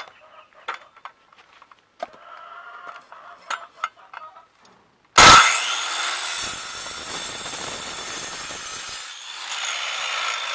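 Black & Decker 10-amp, 1,200-watt circular saw starting abruptly about halfway in and cutting through a wooden board. Its motor keeps running steadily after a short dip near the end. Faint clicks come before the saw starts.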